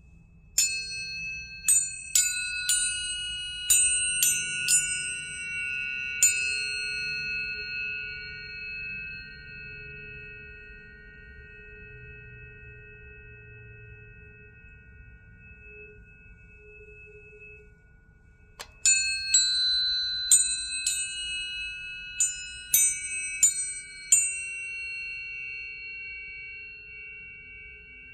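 Several tuning forks of different pitches struck one after another in two rounds. Each strike gives a brief bright clang that settles into a long, pure ringing tone that fades slowly.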